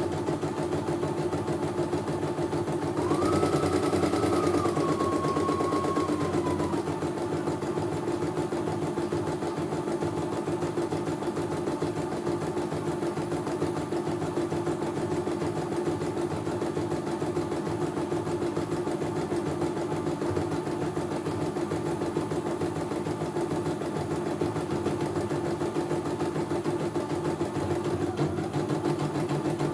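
CNY E900 computerised embroidery machine stitching out a design, its needle running in a fast, steady rhythm while the hoop carriage moves the fabric. About three seconds in, a higher whine joins for roughly four seconds, stepping down slightly in pitch before it fades.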